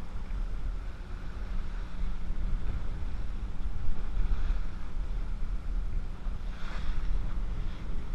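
Twin outboard motors running steadily on a small open fishing boat under way, with wind buffeting the microphone and water rushing past the hull. A brief hiss rises about two-thirds of the way through.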